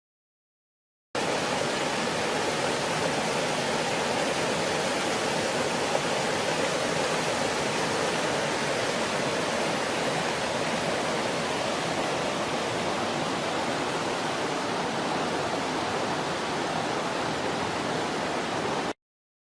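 Mountain creek rushing over cascading waterfalls: a steady, even rush of water that cuts in abruptly about a second in and cuts off just as abruptly near the end.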